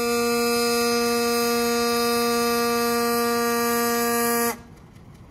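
Diesel locomotive's air horn sounding one long, steady blast on a single pitch. It cuts off sharply about four and a half seconds in. This is the signal that the train is about to leave the station.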